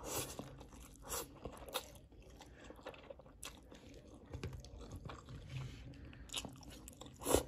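Close-up eating sounds of hot dry noodles dressed in sesame paste: a slurp as a mouthful is sucked in at the start, then chewing and smacking with short bursts every second or so. The loudest slurp comes near the end.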